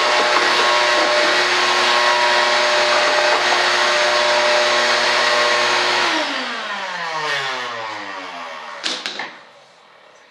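Electric power tool running at a steady speed, then switched off about six seconds in and winding down with a falling whine over about three seconds, with a short clunk near the end.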